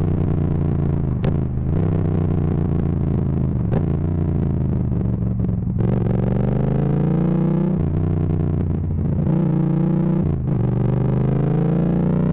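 Yamaha MT-07's parallel-twin engine through a full Akrapovic titanium exhaust, pulling hard with its pitch climbing, broken by several quick gear changes. The exhaust is loud enough that the recording is distorted.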